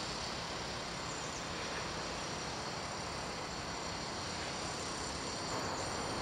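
Steady background hiss with a faint, even high-pitched whine; no clear birdsong.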